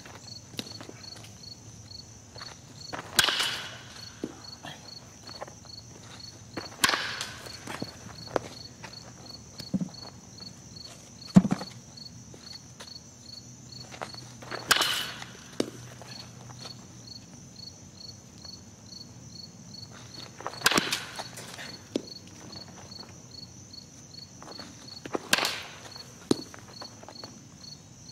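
A baseball bat hitting pitched balls five times at uneven intervals, each a sharp crack with a brief ring, plus a couple of duller knocks in between. A steady pulsing insect trill, typical of crickets, runs underneath.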